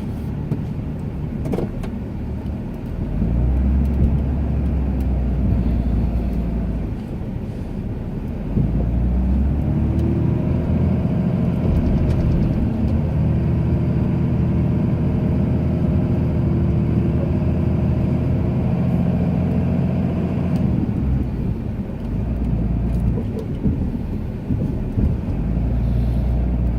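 Ram 2500 pickup engine running under load while plowing snow, its pitch rising and falling as the truck pushes along. It gets louder and steadier about eight seconds in, then eases off near the end.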